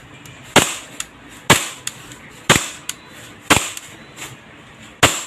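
Novritsch SSP1 Hi-Capa gas blowback airsoft pistol fired five times at about one shot a second, each a sharp crack, with fainter ticks between the shots. The last shot empties the magazine and the slide locks back.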